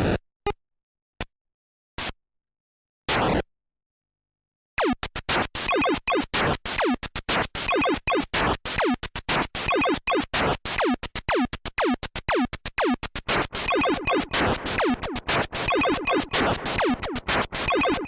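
A home-built 1-bit digital sound effect generator and drum module. It fires a few short isolated blips, goes silent for about a second, then plays a fast, uneven run of sharp electronic drum zaps, each dropping quickly in pitch.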